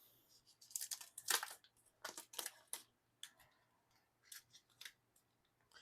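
Faint, scattered crisp clicks and rustles of photo cards and their plastic packaging being handled, a cluster in the first three seconds, then a few isolated ticks.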